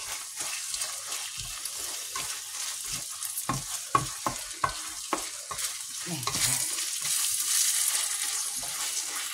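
Minced pork, vegetables and béchamel sizzling in a hot frying pan while being stirred, with a steady hiss and repeated short knocks and scrapes of the utensil against the pan.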